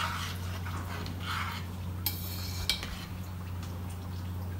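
Metal spoon stirring and scraping inside an aluminium pressure-cooker pot, with a sharp clink of spoon on pot a little after two seconds in. A steady low hum runs underneath.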